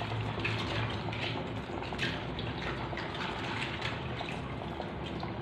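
Pot of chicken and vegetable soup simmering, bubbling with small scattered pops and ticks over a steady low hum.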